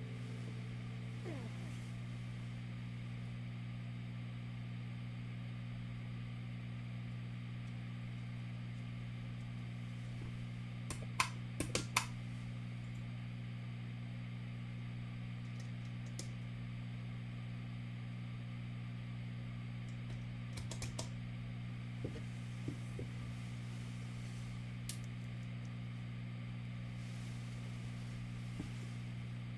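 Steady low hum with occasional sharp clicks: a quick flurry of them about a third of the way in and a few more scattered later.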